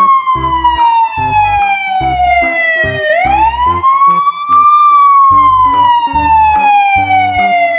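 Toy police patrol car's siren wailing: a tone that slides slowly down, sweeps back up about three seconds in, then slides slowly down again.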